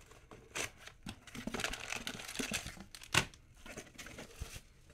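Small white cardboard trading-card boxes being handled and opened by hand: rustling and crinkling of cardboard and wrapping, with light knocks and a sharper snap about three seconds in.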